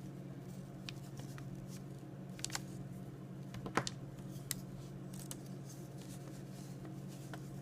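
A steady low hum with a few faint, sharp clicks and taps of a pocket knife being handled, the clearest about halfway through.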